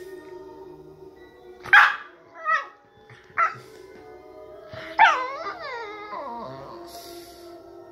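Staffordshire bull terrier puppy giving three short barks, then about five seconds in a longer call that falls in pitch, over background music with sustained notes.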